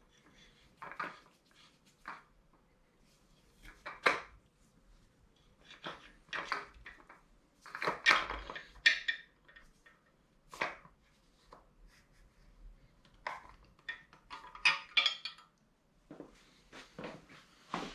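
Irregular metallic clinks and knocks of a camshaft bearing removal tool's rod, cone and sleeves being handled and fitted into a small-block Chevy 350 block. There are about a dozen separate strikes of varying loudness, with short quiet gaps between them.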